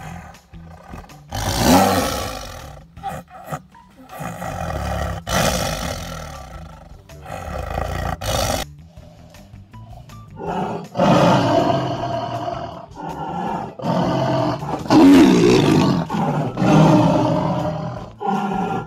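Tigers growling and snarling in a string of deep, rasping growls over their meat, louder in the second half, over background music.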